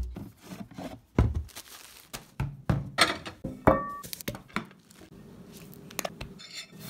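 Kitchen handling noises in quick succession: knocks and thunks of things being picked up and set down, packaging rustling, and a plastic lid being twisted on a peanut butter jar.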